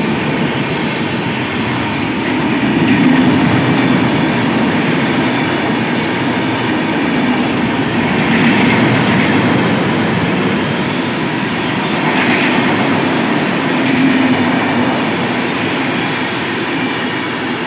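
The 12488 Seemanchal Express's LHB passenger coaches passing at speed close by: a loud, steady rumble and clatter of wheels on the rails that swells slightly every few seconds.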